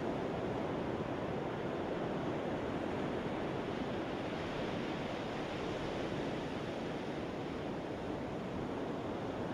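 Ocean surf, a steady rushing noise with no single wave or other sound standing out.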